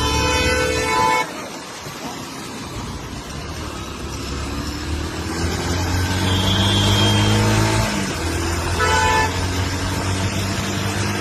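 Road traffic with engines running and a car horn honking, including a short toot about nine seconds in.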